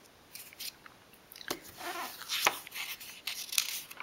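Glossy catalogue pages handled and turned: quiet at first, then a run of crackly rustling and paper scrapes from about halfway in.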